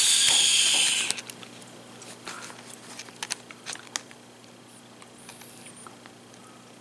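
Thin plastic meal wrapper crinkling as it is handled, loud for about the first second, then only a few faint crinkles and clicks.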